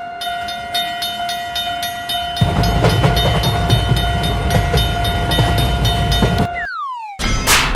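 Railroad crossing alarm ringing, about three clangs a second over a steady high tone. A train rumbles past from about two and a half seconds in. Near the end the sound cuts off and a falling whistle-like glide follows.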